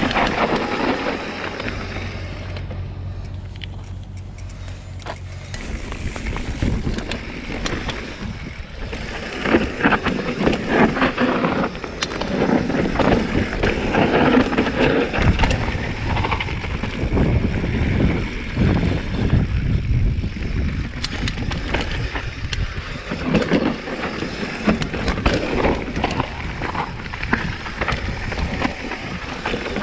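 Giant Trance 3 full-suspension mountain bike running down a rough downhill trail: tyres rolling over dirt and rocks, with the bike clattering and knocking over bumps. The clattering gets rougher and louder from about six seconds in.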